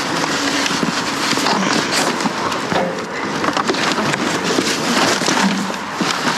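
Busy rummaging through dumpster contents: dense crinkling, rustling and small clicks of plastic, cardboard and packaging being handled and shifted.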